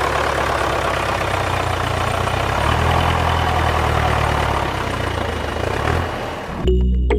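An engine running steadily with a low rumble and a noisy upper hiss, cutting off abruptly near the end.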